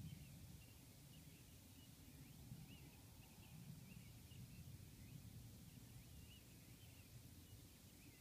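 Faint dawn birdsong: many short chirps repeating throughout, over a low steady background rumble.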